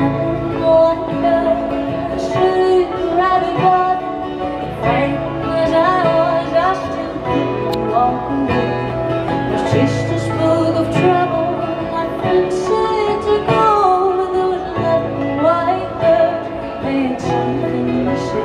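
String band playing a bluegrass-style tune, with guitar and other plucked strings under a singing voice and a steady bass line.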